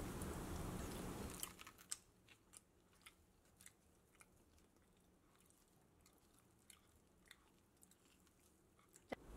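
Near silence: faint room hiss that drops out after about a second and a half, then a few faint scattered clicks.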